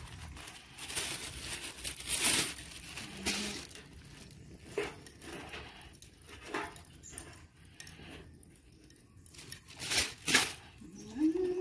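Paper being handled and crumpled: a string of separate rustles and crinkles, the loudest pair near the end.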